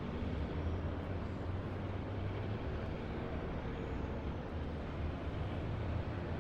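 City street traffic: a steady mix of car, bus and truck engines with a continuous low rumble and tyre noise.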